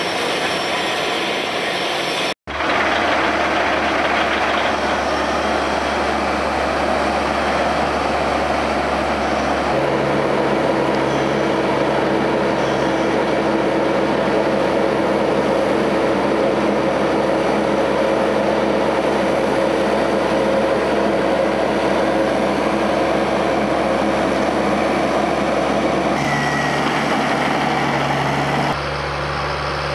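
Tractor diesel engine running steadily under load as grass silage is spread and packed on a clamp. The tone changes abruptly at cuts between shots, with a brief dropout about two seconds in.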